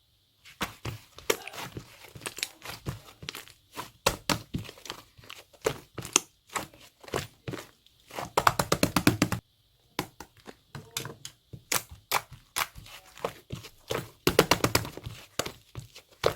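Purple glitter slime being squished and pressed by hand, with trapped air popping in quick crackling clicks. There are dense runs of clicks about eight seconds in and again about fourteen seconds in.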